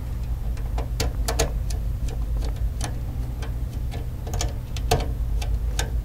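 Light, irregular clicks and ticks of a resistor being fitted into an alarm control panel's screw terminal block and worked with a small screwdriver, over a steady low hum.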